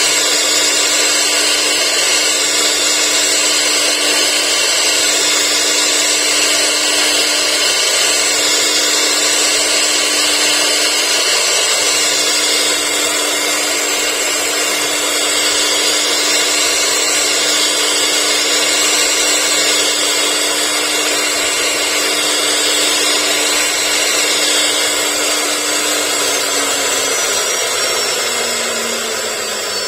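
CIMC2040 CNC wood router running, its spindle giving a steady hum and high whine over the noise of cutting wood. Near the end the hum drops in pitch as the spindle begins to wind down.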